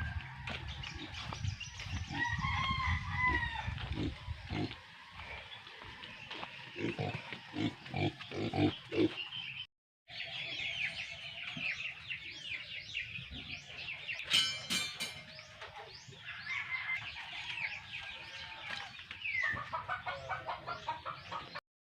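Chickens: a rooster crowing, one long pitched call about two seconds in, with hens clucking and many short high calls. The sound cuts out for a moment about halfway through.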